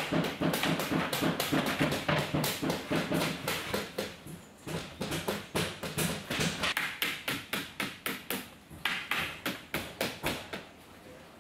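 Rapid hammer taps, several a second in a steady rhythm, with short pauses about four and nine seconds in.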